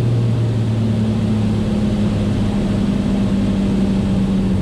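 Steady cockpit drone of a Beechcraft A36 Bonanza's piston engine and propeller, throttled back to idle for a simulated engine failure. The tone of the drone changes about a second in.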